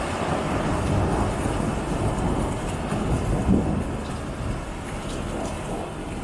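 Thunder rumbling over steady rain, swelling to a peak about three and a half seconds in and then dying away.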